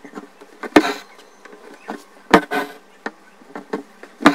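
Embroidery needle stabbing through the fabric with a sharp tap, each followed by a short rasp of stranded cotton thread being drawn through as a satin stitch is made; three stitches about a second and a half apart.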